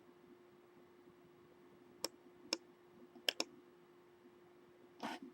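Faint, scattered computer clicks: a single click, another half a second later, then a quick pair, over a steady low hum. Near the end a short, soft rustle.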